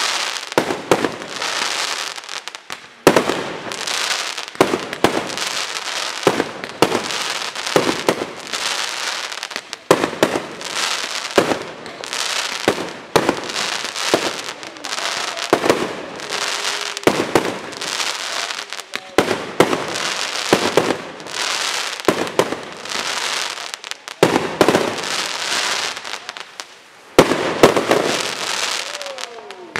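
Fireworks display firing in a continuous barrage: sharp bangs of bursting shells and launches several times a second, with crackle between them. There is a short lull near the end before another loud flurry.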